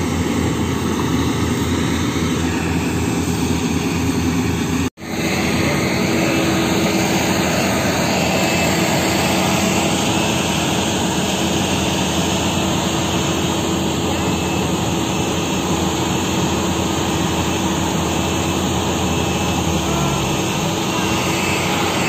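Yanmar AW70GV combine harvester running steadily at work, a continuous engine and machinery drone. The sound cuts out for a split second about five seconds in.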